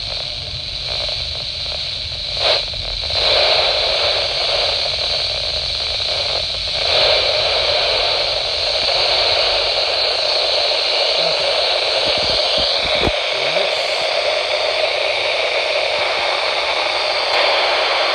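GRE PSR-100 handheld scanner's speaker hissing with steady radio static while tuned to 49.830 MHz, the receiver near the edge of reception of a weak carrier. A low rumble underneath fades out about two-thirds of the way through.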